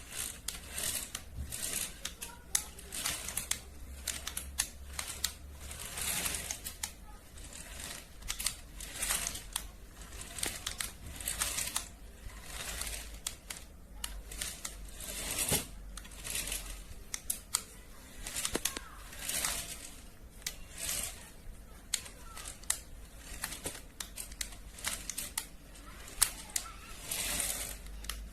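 Plastic and cardboard toy packaging being handled during unboxing: repeated crinkling, rustling swishes with scattered sharp clicks.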